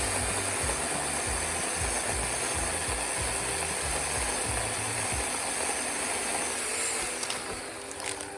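Remington Ranger II electric pole chainsaw running and cutting through a dead ash limb: a steady, loud hissing buzz that dies away near the end. Background music with a bass line plays under it.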